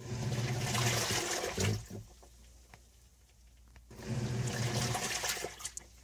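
Small portable washing machine running its wash cycle in two bursts of about two seconds each, with a pause between: a low motor hum mixed with water churning in the tub.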